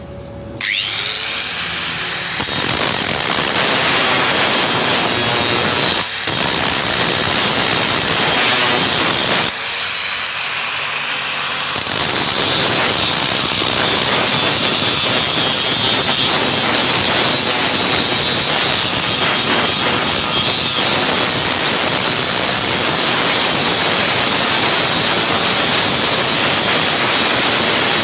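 Angle grinder grinding an iron plate: a steady, loud grinding with a high whine that starts about a second in, easing briefly twice before running on.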